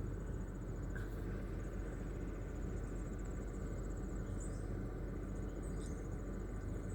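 Insects trilling in a field: a thin, high, fast-pulsed buzz that stops and starts, over a steady low background rumble.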